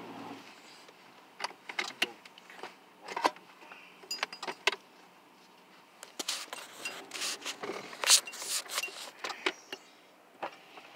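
Irregular clicks, knocks and rattles inside a vehicle cabin as it moves over rough, snowy ground. The loudest clatter comes about eight seconds in.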